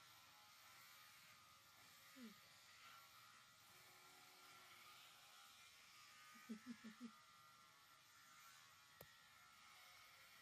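Near silence with a few faint sounds: a short falling vocal sound about two seconds in, four quick soft vocal pulses a little past the middle, and a single click near the end.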